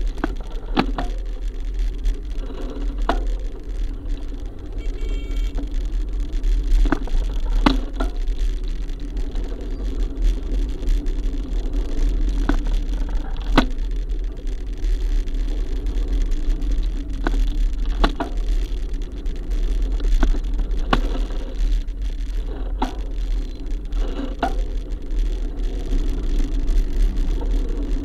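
A small vehicle riding slowly through dense street traffic: a steady low rumble of motion and traffic with frequent sharp clicks and knocks every second or two.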